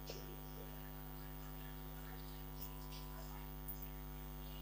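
Faint, steady electrical hum with evenly spaced overtones, like mains hum picked up by the recording microphone, with a few faint ticks.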